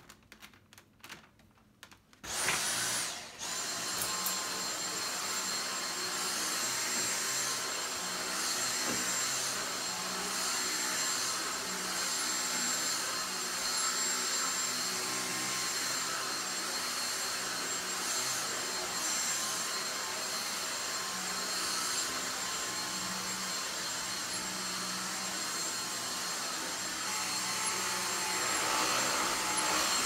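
Dyson V6 cordless stick vacuum lifted with a few handling clicks, then switched on about two seconds in, cutting out for a moment and starting again. It then runs steadily with a high whine while its motorised floor head is pushed over carpet, getting louder near the end.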